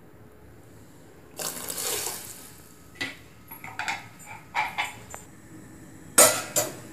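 Liquid poured and splashing into a steel pot of simmering tamarind gravy, followed by several light clinks of a container against the steel pot. A louder sudden clatter comes near the end.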